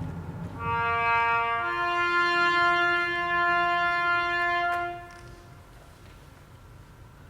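Brass music: a few long held notes sounding together, which stop about five seconds in.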